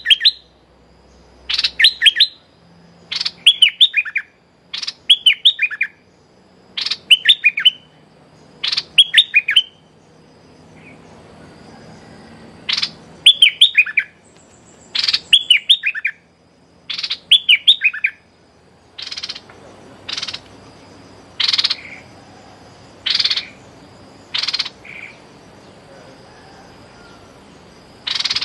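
Caged decoy bulbul calling to lure wild birds: short phrases of three or four quick, wavering whistled notes, repeated every second or two. About nineteen seconds in it changes to single short, sharp call notes about every one and a half seconds.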